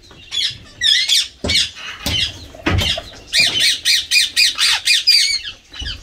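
Indian ringneck parakeet squawking in short, shrill calls, with a fast run of about six repeated calls a second a little past the middle.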